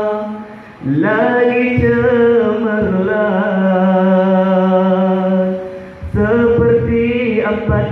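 A man chanting a Maulid recitation in praise of the Prophet, in long drawn-out melodic phrases with each note held for seconds. The voice breaks off briefly just before a second in and again about six seconds in, each time starting a new phrase on a rising pitch.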